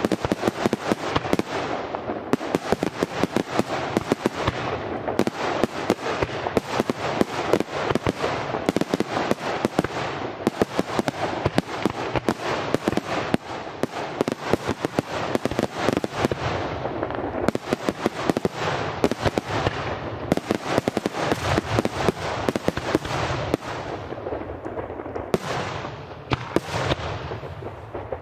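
Aerial fireworks display firing a dense barrage: a rapid, unbroken stream of shell bursts and crackling, many bangs a second, thinning a little near the end.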